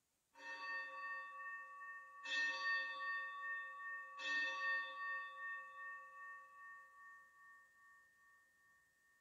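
Altar bell struck three times, about two seconds apart, each strike ringing on and the ringing fading slowly after the third. It marks the elevation of the consecrated host.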